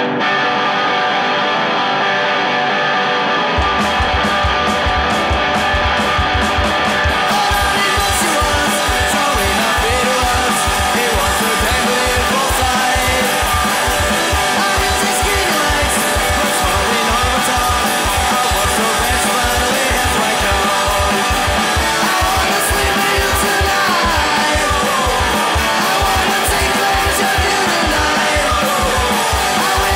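Rock song led by electric guitar, with a steady drum beat and low bass coming in about four seconds in.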